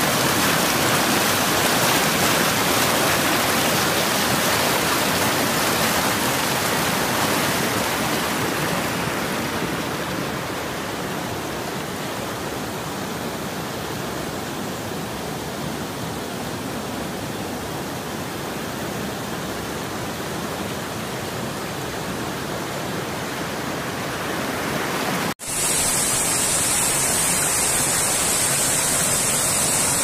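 River water rushing and splashing over boulders in rapids, a steady noise that eases somewhat partway through. After a sudden break near the end, the flow of a small rocky stream continues with a steady high hiss over it.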